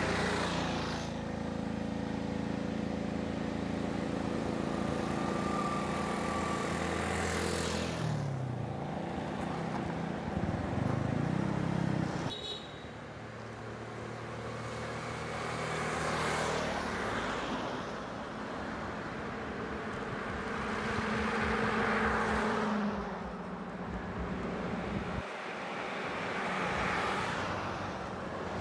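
Road traffic: motorcycles and cars passing one after another, each swelling and fading away, with engines running. The sound changes abruptly about twelve seconds in.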